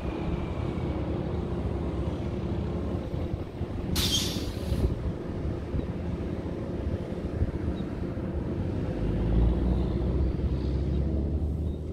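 GE C40-9W diesel-electric locomotive idling, its 16-cylinder diesel engine making a steady low drone. A short hiss of air is released about four seconds in, and a deeper low rumble swells near the end.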